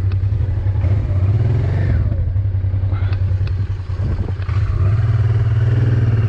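Honda motorcycle engine running at low revs under light throttle while the bike is worked around on rough ground, the revs dipping and picking up a couple of times, with a few clicks and knocks from the bike.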